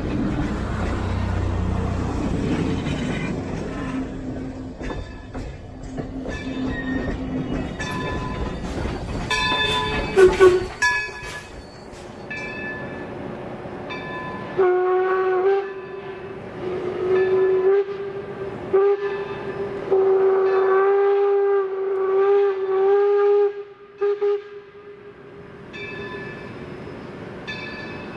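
A railway passenger coach rolls past close by with a low rumble. Then the steam whistle of Baldwin Locomotive Works #26 sounds several blasts of different lengths as the locomotive approaches, while a bell rings at an even pace, about twice a second.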